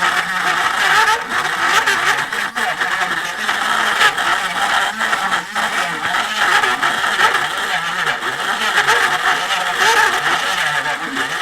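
Handheld rotary tool running continuously, its pitch wavering up and down as the bit grinds old glue out of the wooden neck pocket of an acoustic guitar body.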